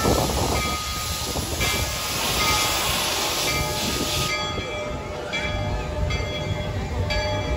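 Steam locomotive No. 340 hissing loudly as it vents steam around its front for about four seconds; the hiss then drops away, leaving a few separate chuffs from the engine.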